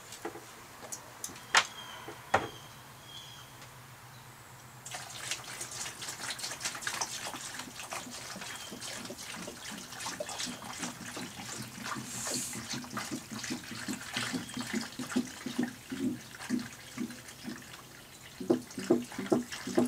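Water from a plastic gallon jug splashing and gurgling into a plastic tub of water, filling an electrolysis bath. It starts about five seconds in, after a few sharp clicks, and there are a few sharper knocks near the end.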